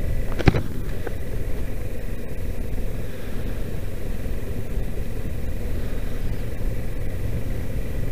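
Kawasaki Versys 650 parallel-twin engine running under a steady low rumble of wind while the motorcycle rides on a snowy road, with a short sharp click about half a second in.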